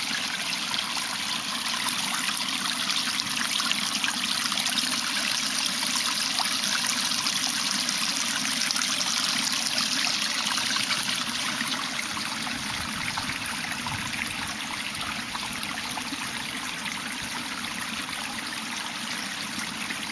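Stream of water flowing into a pond: a steady rush of running water, a little louder in the first half and easing slightly after the middle.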